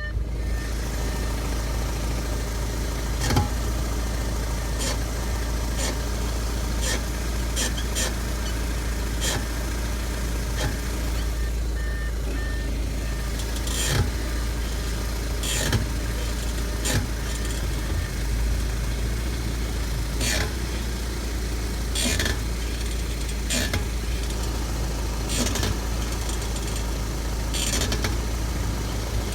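Car running with a steady low rumble, over which a brief sharp click or knock repeats every second or two. This is the noise from the driver's front brake of a 2014 Audi A5 quattro, which shows up once the brakes are warm and came back even after the caliper, rotors and pads were replaced.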